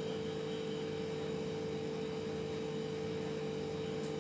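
A steady hum with one constant mid-pitched tone, over a faint even hiss.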